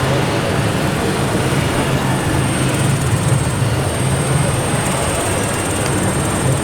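Steady mechanical running of large-scale RC construction models working, with a low hum and a thin high whine throughout.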